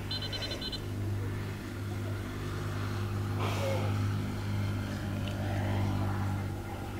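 An engine running steadily at an even speed, a low humming drone.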